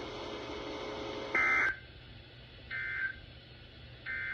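Emergency Alert System end-of-message data bursts: three short, identical buzzy digital tone bursts about a second and a half apart, the first about a second and a half in, signalling the end of the alert broadcast over a faint steady hiss.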